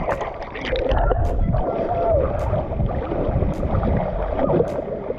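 Lake water sloshing and lapping against a camera held at the surface among swimmers, with a low rumble of water on the microphone and short, sharp splashes about once a second.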